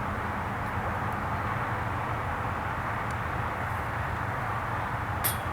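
Steady outdoor background rumble with a low hum underneath, and one short sharp click about five seconds in.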